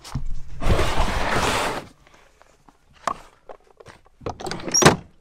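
Footsteps crunching on thin snow, with rustling handling noise, a few clicks and a sharp knock just before the end.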